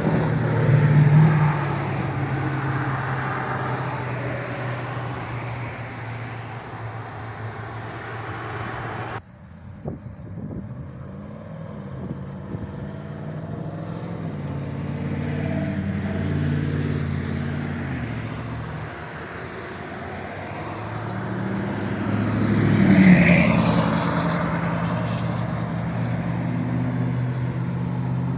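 Road traffic: car engines running at low speed in slow traffic, steady low engine tones throughout. The sound drops off abruptly about nine seconds in, and a vehicle passes close and loud about 23 seconds in.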